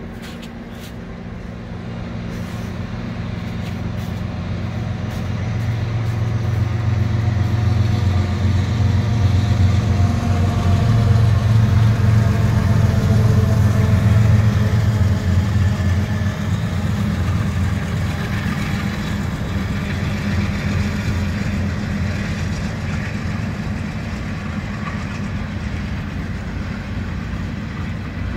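A Canadian Pacific freight train led by two GE diesel locomotives, an ES44AC and an AC4400CW, approaching and passing. The engines' low drone grows to its loudest about halfway, then eases as tank cars roll by on the rails.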